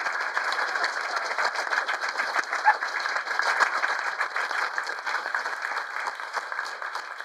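Audience and cast applauding at a theatre curtain call, a dense crowd of handclaps that tails off near the end.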